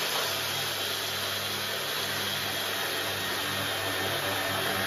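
Electric food processor motor running steadily while grinding blanched almonds into meal, a loud even grinding noise over a constant motor hum.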